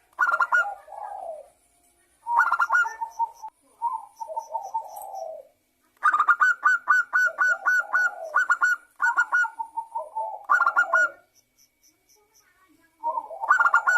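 Zebra dove (perkutut) singing: several phrases, each a run of quick staccato notes that rolls down into lower coos, with short pauses between them.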